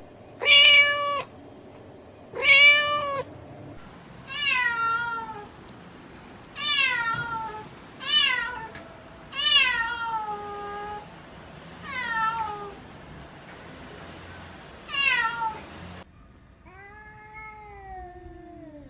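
Domestic cat meowing again and again, nine separate meows, about a second or two apart. The first two are short and level; the next six start high and slide down in pitch. The last one, near the end, is a long, lower meow that falls steadily in pitch.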